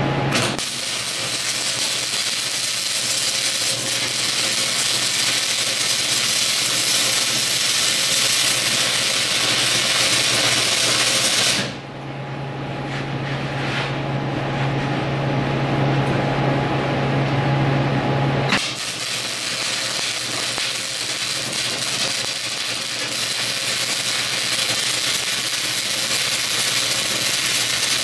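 Electric arc welding on steel: a steady crackling hiss of the arc. It stops a little before halfway for about seven seconds, leaving a steady low hum, then starts again.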